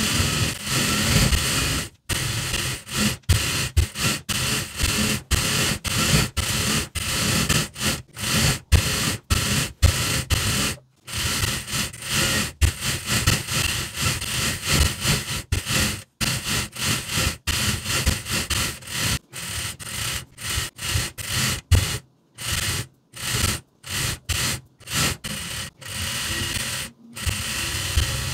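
Juki industrial lockstitch sewing machine stitching in many short runs, starting and stopping abruptly, with fabric rubbing as it is fed under the presser foot.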